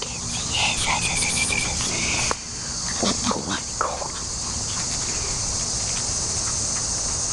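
Steady night chorus of crickets trilling, with a few brief short noises in the first four seconds.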